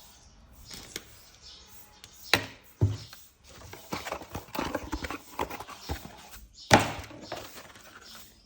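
Packaging and plastic parts being handled during an unboxing: a string of irregular knocks and clicks with rustling between them, the loudest knock near the end.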